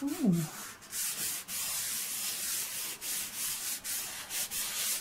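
A hand rubbing soft pastel into sketch-pad paper to blend it, a dry papery hiss in repeated back-and-forth strokes. A brief low falling hum sounds right at the start.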